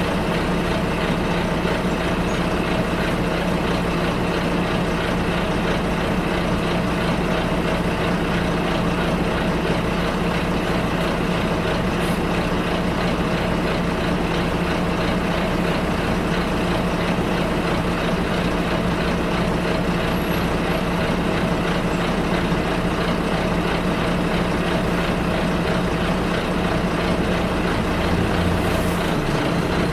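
Bus engine running steadily with road noise, heard from inside the bus as it drives: a constant low drone with a steady hum. A short hiss comes near the end.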